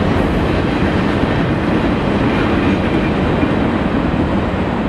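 Norfolk Southern freight train's boxcars and covered hoppers rolling past at speed, a steady loud rumble and rattle of wheels on rail.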